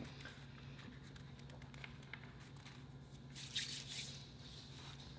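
Quiet room with a steady low hum and a few faint small clicks. A brief soft rustling noise comes a little past the middle.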